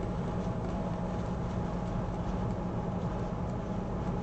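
Steady low background hum of room tone, with a few faint light ticks of a stylus writing on a tablet screen.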